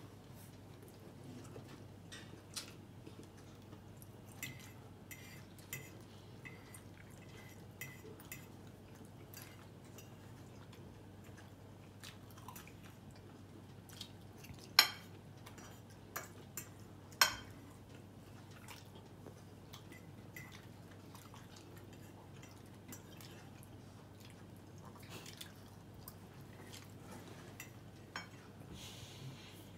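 Fork and knife clinking and scraping on a dinner plate, with soft chewing between; two sharper clinks ring out about halfway through. A faint steady hum lies underneath.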